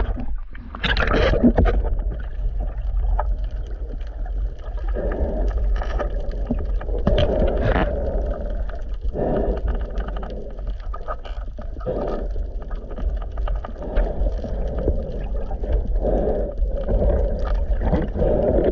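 Muffled underwater water noise picked up by a diving camera: a steady low rumble with irregular swells of sloshing and gurgling and scattered small clicks, as the sea surges.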